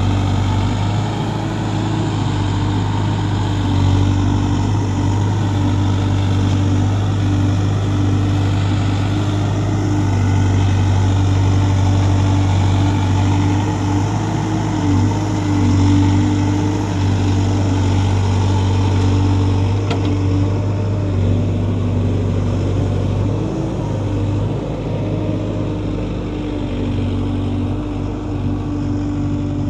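Diesel engine of a JCB backhoe loader running steadily as it digs and loads soil, its pitch shifting slightly a few times as the load changes.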